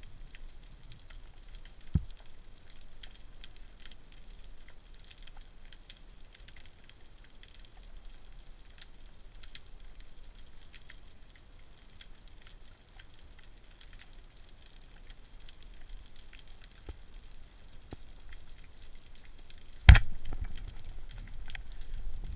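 Steady fine underwater crackling, with one loud, sharp crack just before twenty seconds in as a speargun is fired, followed by a couple of seconds of louder low rumble.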